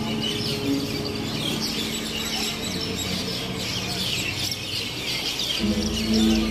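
Many small birds chirping over a soft background melody of slow held notes; about five and a half seconds in, the music swells with a deeper bass line.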